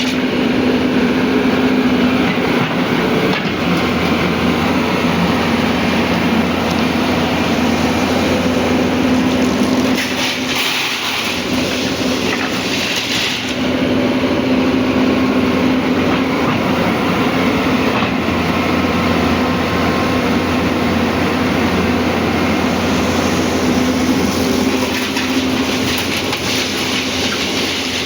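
Hyundai excavator's diesel engine running steadily under work, with a brief dip and swing in engine note about ten seconds in that recovers by about thirteen seconds.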